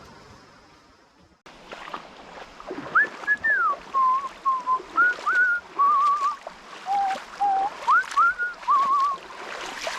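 A person whistling a meandering tune of gliding notes and short warbling trills, over the rush of a shallow creek with small splashes.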